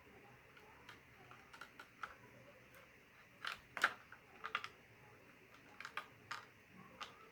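Light, irregular clicks and taps of small plastic items being handled, with the loudest cluster about halfway through.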